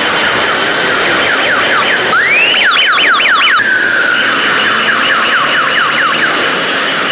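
Car alarm sounding through its cycle of tones: falling chirps about three a second, a rising whoop about two seconds in, a burst of faster chirps, a short steady tone, then the slower chirps again, over the hum of passing traffic.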